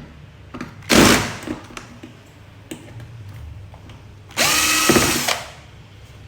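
Power drill-driver running in two short bursts, a brief one about a second in and a longer one of about a second near the end, its motor whine bending in pitch as it spins up and stops, as screws are driven out of a TV casing.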